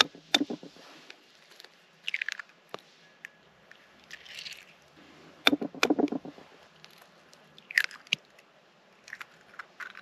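Eggshells cracking and crunching as two eggs are broken, the second about five seconds after the first: sharp cracks followed by a brief crackle of shell each time.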